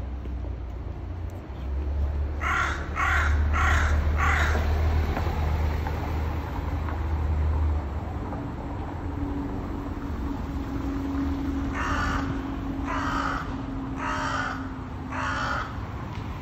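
Hooded crow cawing: a quick run of four caws about two seconds in, then another four, more widely spaced, near the end, over a low rumble.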